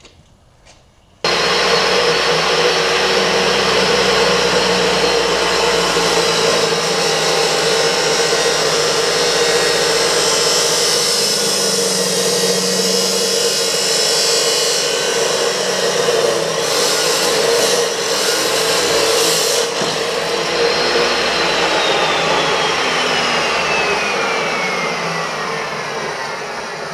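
Porter-Cable chop saw switched on with a sudden start about a second in, its wheel cutting through 1-inch square tube with a loud, steady grinding for nearly twenty seconds. It is then switched off and winds down with a long falling whine.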